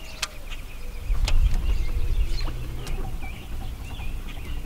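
Songbirds chirping over a low rumble that swells between about one and three seconds in, with a few sharp clicks.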